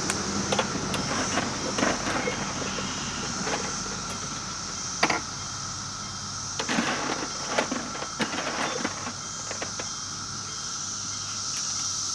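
Ride-on live steam miniature train rolling along the track: irregular clicks and clunks from the wheels and cars over the rail joints, over a steady high hiss.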